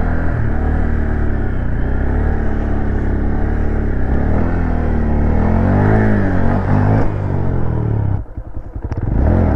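Honda Grom's small single-cylinder engine revving up and down as the bike is ridden through wheelie tricks. About eight seconds in the throttle snaps shut and the engine falls to a low chugging for about a second, then picks up again.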